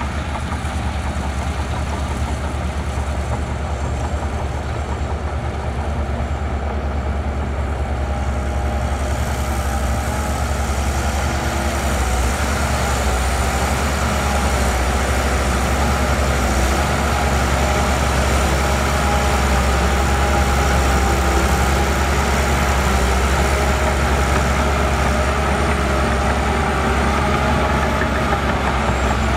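Heavy diesel earth-moving machinery running steadily, a deep engine note with noise on top, growing a little louder about a third of the way in.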